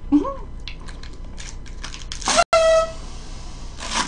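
A small plastic toy horn blown by mouth gives one short, steady honking toot about two and a half seconds in, lasting about half a second, just after a sharp rush of breath. A brief vocal sound comes at the start.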